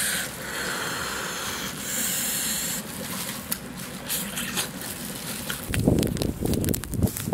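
Eating noises as a cooked crocodile is torn apart and bitten: hissing, wet sucking and crunching. From about six seconds in, burning field stubble crackles, with wind rumbling on the microphone.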